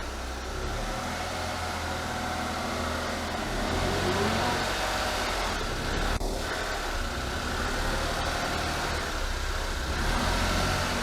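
Honda Acty HH6 van running, most likely on the move: steady engine hum with road and mechanical noise, a little louder from about a third of the way in, and one brief sound about halfway through.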